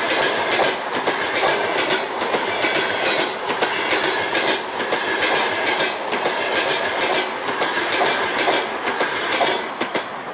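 Passenger coaches of a long-distance train passing at speed: a steady rushing rumble with the wheels clattering over rail joints, dropping away near the end as the last coach goes by.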